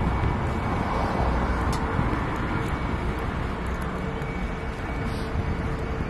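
Steady airport ambience of engine noise: road traffic and jet aircraft running, a constant rumble with a steady whine on top.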